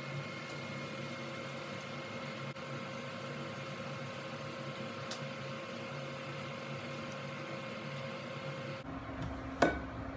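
Portable induction cooktop running under a skillet: a steady fan hum with a high electrical whine. Near the end the hum changes abruptly, and a single sharp knock follows as a glass measuring cup is set down on the table.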